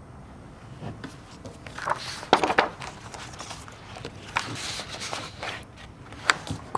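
Classroom desk sounds: paper rustling, pens scratching and small knocks and scrapes on wooden desks, with the loudest cluster about two to two and a half seconds in and a sharp knock just after six seconds.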